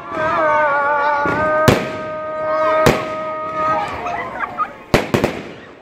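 Fireworks going off in the open: four sharp bangs, the last two close together, over long, wavering whistles that fade out about four seconds in, followed by short rising whistles.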